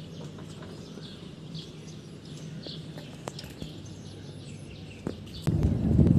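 Small birds chirping now and then over a steady low outdoor hum, with a few light clicks. About five and a half seconds in, loud wind noise on the microphone takes over as the camera moves along the road.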